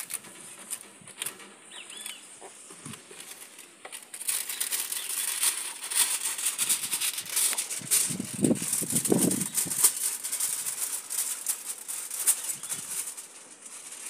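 Aluminium foil crinkling and rustling as a sheet is unrolled from its box and handled, starting about four seconds in and running on as a dense crackle.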